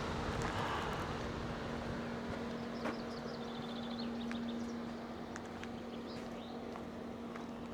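Outdoor ambience: birds chirping, with a quick run of high chirps midway, over a steady low hum and a light background hiss. A few faint clicks.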